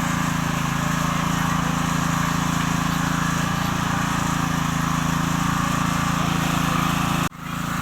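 Small cultivator engine running steadily. The sound drops out suddenly for a moment near the end and comes back.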